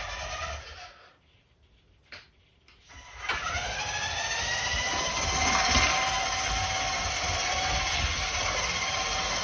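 Small electric motor of a radio-controlled toy car whining. It stops about a second in, a click follows, then it spins back up with a quickly rising whine about three seconds in and runs steadily.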